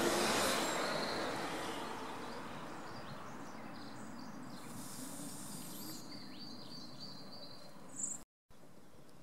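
A passing road vehicle's noise fades away over the first few seconds, leaving quiet outdoor ambience with a few faint bird chirps. The sound cuts out briefly near the end.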